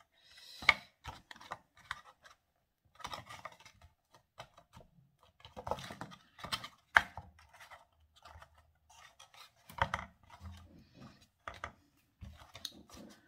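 Kraft cardboard boxes being handled and set against one another on a cutting mat: irregular light taps, clicks and scrapes of card, with a few sharper knocks and short pauses between them.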